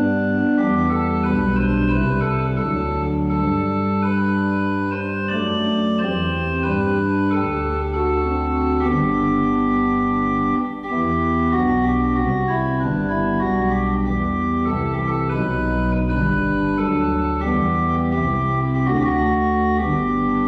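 Organ music: slow, held chords over deep bass notes, the harmony changing every second or two, beginning suddenly out of silence.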